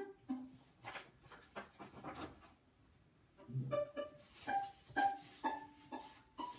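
Violin plucked in short, separate notes, with paper rustling in the first half; after a short pause the plucked notes climb higher.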